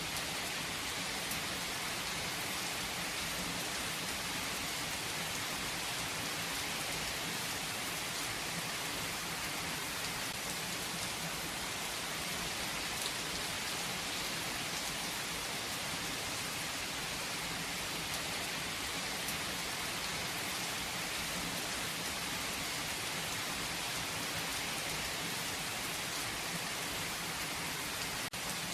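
Steady rain falling on a surface, an even hiss with faint scattered drop ticks and no change in intensity.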